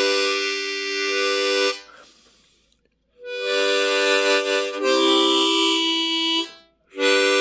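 Seydel diatonic harmonica in C played in long held chords of several notes at once. Three held chords are separated by short breaks, and the middle one shifts to a different chord partway through.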